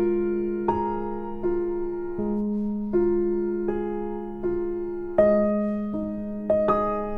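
Background piano music: slow, gentle single notes struck about every half to three-quarters of a second over a held low note.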